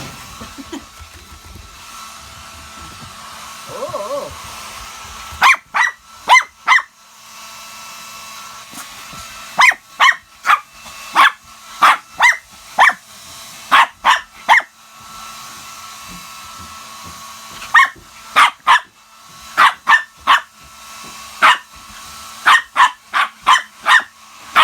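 A Shih Tzu barking repeatedly at a hair dryer, which runs steadily underneath with a whining hum. The barks come in quick clusters of sharp yaps. They start about five seconds in, with short pauses between the groups.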